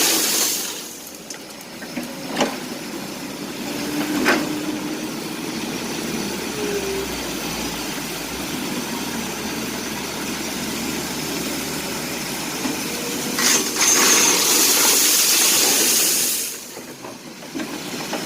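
Excavator loading split andesite stone into a truck: the engine runs steadily, with a few sharp knocks. About thirteen and a half seconds in comes a loud rush of rock pouring from the bucket that lasts about three seconds.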